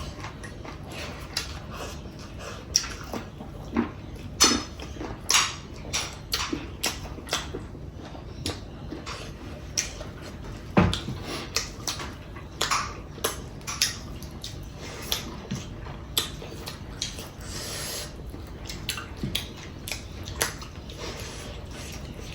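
Close-up eating sounds from a meal of chicken curry and rice: wet chewing and lip smacks with small irregular clicks and taps throughout, one sharper click about halfway through.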